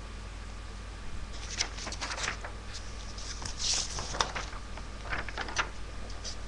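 Sheets of paper rustling and crinkling as they are handled, in several short bursts, with a sharper tick about four seconds in, over a steady low electrical hum.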